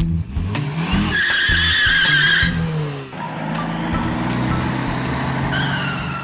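Dubbed car sound effects: an engine revving with rising and falling pitch, and tyres squealing in a skid twice, first from about a second in for a second and a half, then again near the end.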